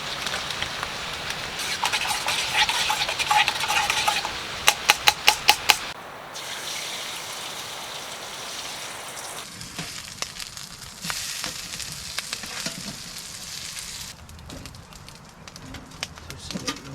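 Bacon sizzling in an oiled frying pan on a wood stove. About five seconds in there is a quick run of about six sharp clicks.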